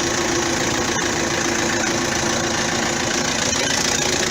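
Vauxhall Astra diesel engine idling steadily on its new auxiliary belt, tensioner and idler, with the new alternator charging at 14.29 volts.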